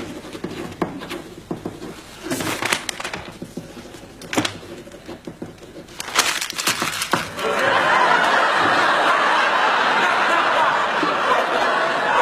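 Studio audience laughter: scattered quiet laughs with a few sharp knocks at first, then about seven and a half seconds in it swells into loud, sustained laughter.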